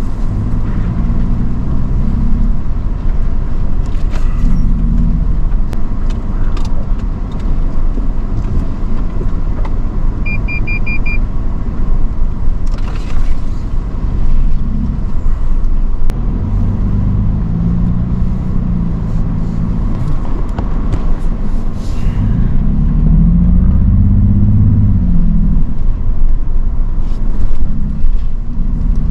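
Vehicle engine heard from inside the cabin as it crawls along a narrow sandy off-road trail, its pitch rising and falling with the throttle over a constant low rumble. There are scattered knocks and a brief repeated electronic beep a little over ten seconds in.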